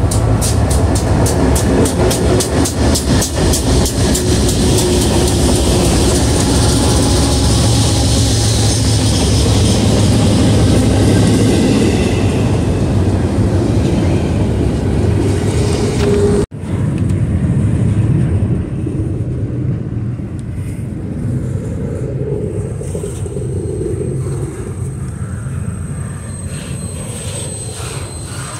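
BNSF freight train passing close: the lead diesel locomotives' engines are running under load, then double-stack intermodal cars roll by with steady wheel-on-rail noise. About halfway through the sound cuts out for an instant, and after that the rolling goes on quieter.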